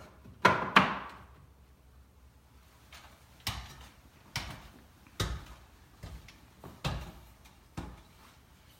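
Plastic door chime cover being snapped back onto the chime: two loud snaps about half a second in, then a few lighter knocks spaced about a second apart as it is pressed and handled into place.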